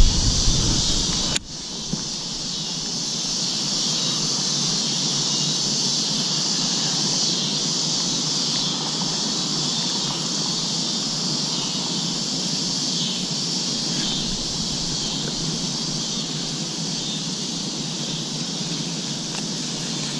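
Steady, unbroken high-pitched chorus of insects, coming in just after a click about a second and a half in.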